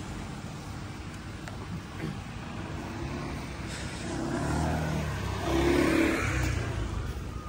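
A motor vehicle passing close by over a steady street-traffic background. Its engine grows louder from about four seconds in, is loudest around six seconds, then fades.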